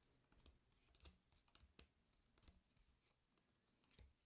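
Very faint, scattered clicks and taps of Pokémon trading cards being handled and set down, against near silence.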